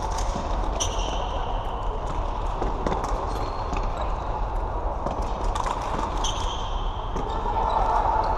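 Floorball play in a sports hall: sticks clacking against each other and striking the plastic ball in quick, irregular knocks, with short high shoe squeaks on the court floor about a second in and again near six seconds.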